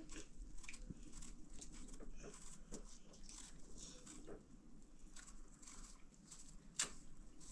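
Quiet handling sounds of fruit being peeled and cut by hand over plates: scattered small clicks, taps and rustles, with one sharper click near the end.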